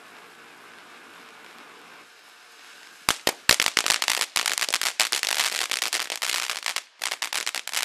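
Black Cat 1.21 Gigawatts 200-gram firework fountain: a steady hiss of spraying sparks, then about three seconds in a sudden, loud, rapid crackling as the fountain starts throwing crackling stars, with a brief lull near the end.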